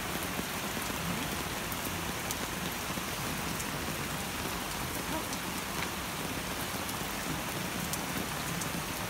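Steady rain falling on a swimming pool and wet paving: an even hiss with scattered sharp drop ticks.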